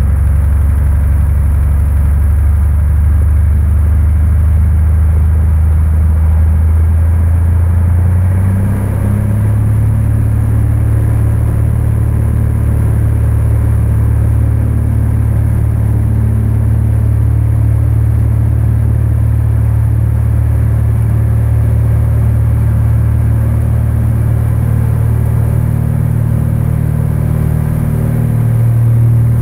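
Cessna 172's piston engine and propeller heard from inside the cockpit, running steadily at low power while taxiing. The engine note steps up in pitch about a third of the way through, and rises again with a little more loudness near the end as power comes up for the takeoff roll.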